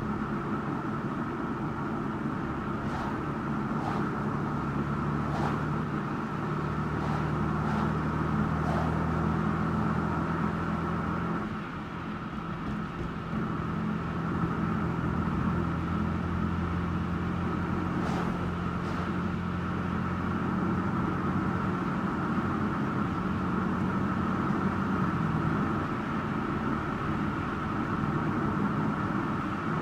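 Car engine and road noise while driving: a steady engine hum over tyre rumble, with a short dip in level and a change in the engine note about eleven seconds in.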